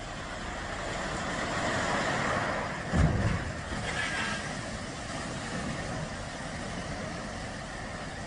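A loaded river barge capsizing and dumping its gravel cargo into the water. A rush of water and sliding gravel builds, then a heavy low thud about three seconds in is the loudest moment as the load goes over. Water then churns and pours off the deck as the emptied barge bobs back up.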